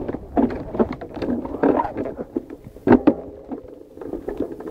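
Hardtail mountain bike rattling and clattering down a rough dirt trail, with irregular knocks as the front fork and frame take bumps and one hard jolt about three seconds in, picked up by a camera mounted on the bike.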